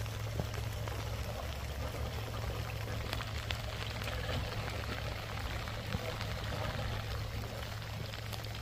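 Off-road 4x4 moving slowly over a wet, muddy trail: a steady low engine hum under a continuous spattering, watery noise with scattered small clicks.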